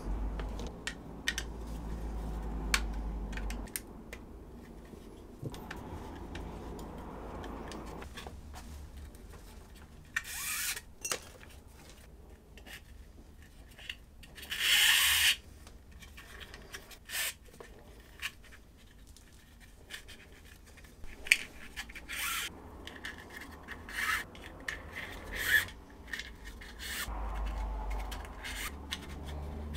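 Hands handling a Kydex plastic sheath and its webbing belt loop: rubbing and scraping with scattered clicks and taps. The loudest is a scrape of about a second and a half midway.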